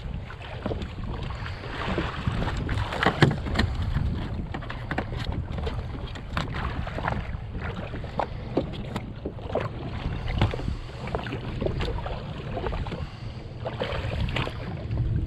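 Wind buffeting the microphone in a steady low rumble, with many sharp knocks and clicks scattered through it, the loudest about three seconds in.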